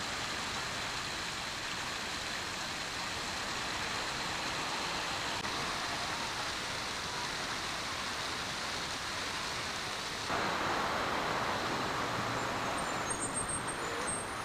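Steady city street traffic noise, a wash of road noise that gets louder about ten seconds in.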